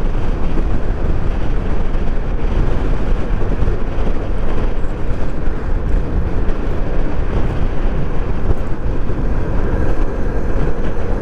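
Yamaha NMAX 155 scooter's single-cylinder engine running at a steady cruise, under heavy, even wind rush on the microphone.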